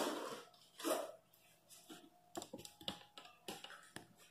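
Cardboard packaging being handled: a rustling scrape of cardboard at the start and another about a second in, then a string of faint light clicks and taps.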